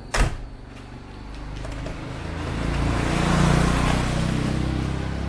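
A car door is pushed shut with a single thump just after the start. Then a vehicle drives past: engine hum and road noise rise to a peak about three and a half seconds in and fade, the loudest sound here.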